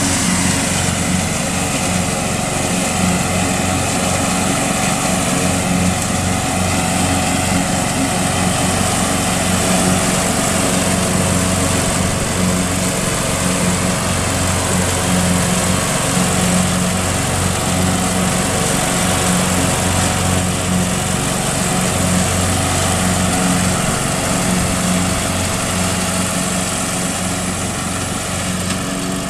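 MTD riding lawn mower engine running steadily as the tractor drives across the lawn mowing. Its low hum wavers slightly in pitch and fades a little near the end as it moves away.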